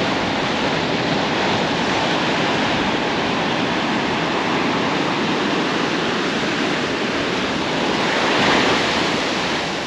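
Surf washing onto a beach, a steady rushing with one wave swelling up louder about eight seconds in, with wind buffeting the microphone.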